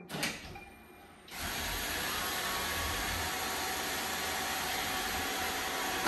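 Roomba robot vacuum starting a cleaning run: after a brief sound at the start, its vacuum motor and brushes start about a second in and run with a steady, even noise as it leaves its dock.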